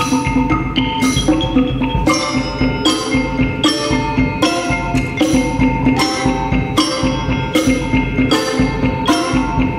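Percussion ensemble playing mallet percussion: ringing pitched notes struck at an even pulse of about two a second over a steady low tone.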